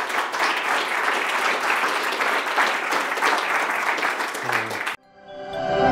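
Audience applauding, a dense patter of many hands clapping that cuts off abruptly about five seconds in. Music then swells in near the end.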